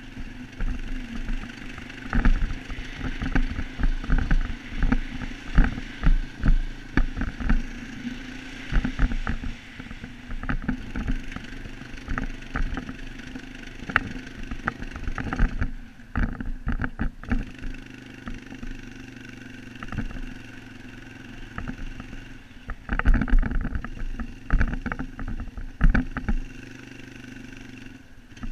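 Off-road vehicle engine running while riding over a bumpy dirt trail, with frequent jolts and wind buffeting on the microphone. The engine eases off briefly about sixteen seconds in and again near the end.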